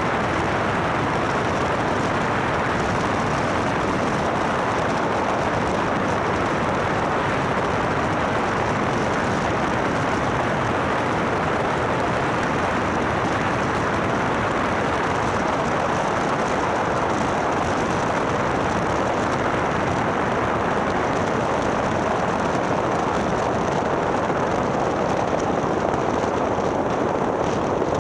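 Steady noise of a light propeller aircraft in flight: the engine and the rush of air over an outside-mounted camera, one even level throughout.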